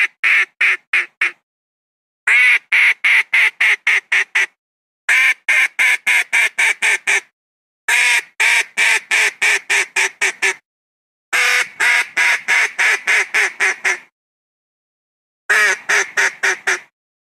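Philippine wild duck (papa) quacking in repeated series of short quacks, about four a second, each series starting loud and fading off, with pauses of about a second between series. It is a lure call, played to bring wild ducks down to land.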